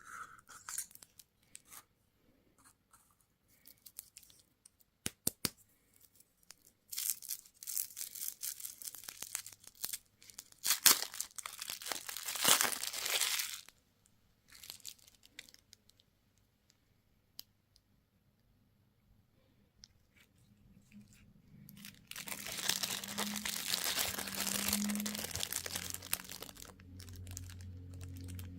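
Candy wrappers being torn open and crinkled, in two long crackling bursts with quiet gaps between, plus scattered clicks and taps.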